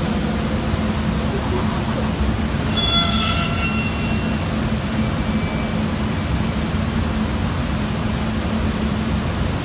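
Northwood TA125MT CNC router running, a steady low hum with a brief high-pitched whine about three seconds in.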